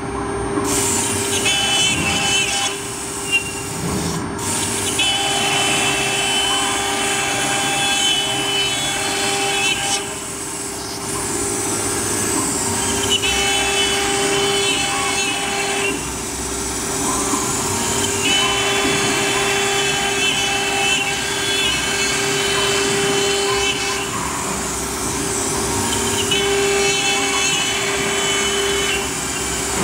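AccTek 1325 CNC router's spindle running steadily while its bit engraves grooves into an MDF sheet. Over a steady whine, a higher set of tones and the cutting noise come and go in stretches of a few seconds as the head moves along each path.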